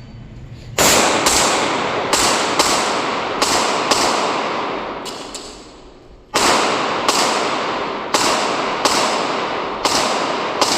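Handgun shots fired in rapid strings, about fifteen in all: a quick group of six or seven, a pause of a few seconds, then a faster group of about eight. Each shot is followed by a long echo.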